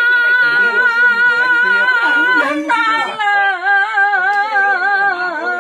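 An elderly woman singing, holding a long, high, wavering note. A second, lower held note begins about three seconds in.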